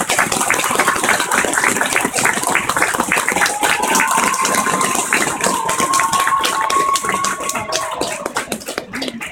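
An audience clapping rapidly in an ice arena, with a long held note running through the middle.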